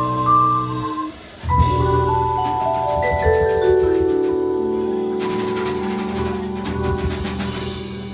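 Vibraphone and drum kit in a jazz tune: after a brief break about a second in, a cymbal crash and drum hit, then a descending run of vibraphone notes that are left ringing, one over the next, while the cymbal wash dies away near the end. It is the closing flourish of the tune, with applause just after.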